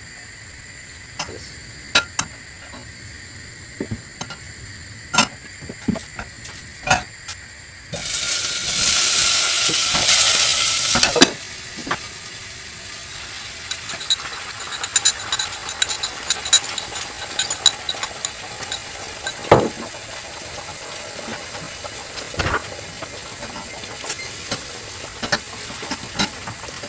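Food hitting hot oil: a loud burst of sizzling about eight seconds in that cuts off sharply some three seconds later. After that, beaten egg sizzles steadily in a frying pan while a wooden spatula stirs and scrapes, with scattered clicks and knocks of utensils on the pans.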